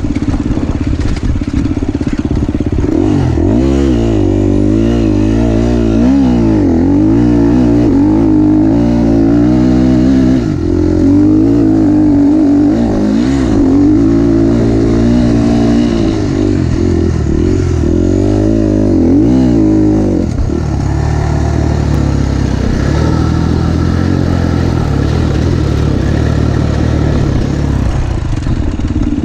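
KTM 350 SX-F single-cylinder four-stroke motocross engine being ridden hard on a dirt track, its pitch rising and falling over and over with throttle and gear changes. For a stretch about two-thirds of the way through it runs steadier, then revs up again near the end.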